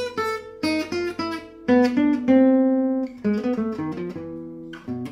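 Selmer-Maccaferri-style gypsy jazz guitar picked one note at a time, playing enclosures: grace notes that surround the notes of an A minor arpeggio. A quick run of separate notes, with one note left ringing longer about two seconds in.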